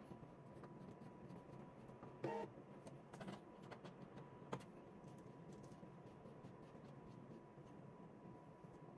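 Near silence with faint clicks of plastic PTFE tubing and an adapter fitting being handled. There is a short rattle about two seconds in and a sharper click a couple of seconds later.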